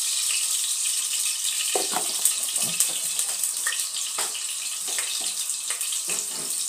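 Steady hiss from a lit gas stove burner under a saucepan, with a few faint ticks and clicks scattered through it.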